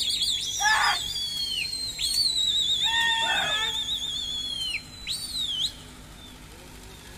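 Loud human whistling: several long, warbling trilled notes with swooping rises and drops, stopping about two-thirds in. It is a pigeon flyer whistling to his flock as it circles overhead.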